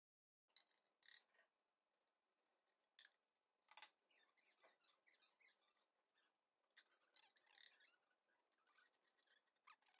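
Faint, scattered clicks and rubbing of small plastic and metal desk hardware being handled as a leg protector is fitted onto the end of a steel table leg.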